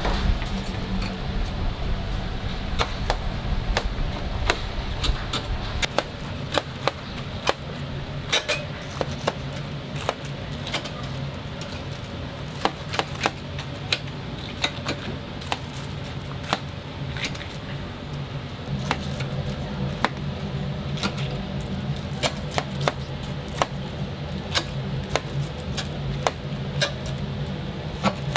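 Steel tongs and a knife clicking and knocking against a stainless wire rack and tray, in irregular sharp taps, as whole fried chickens are turned and cut. A steady low hum runs underneath.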